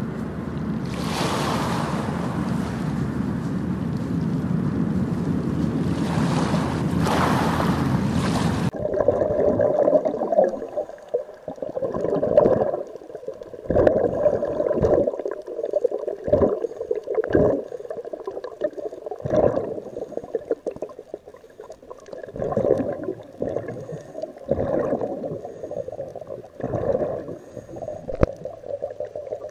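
Waves and wind noise on a beach, swelling twice. About nine seconds in, it cuts abruptly to underwater sound of scuba divers breathing through regulators: irregular gurgling surges of exhaled bubbles.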